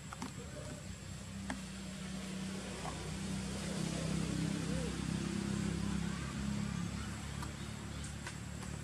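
A low, steady engine hum that grows louder through the middle and eases off near the end, with faint voices and a few light clicks.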